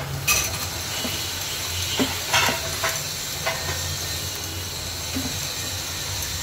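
Chicken and mushrooms sizzling in a pan with butter and freshly added yogurt. A steady frying hiss, with a stirring utensil knocking and scraping against the pan several times.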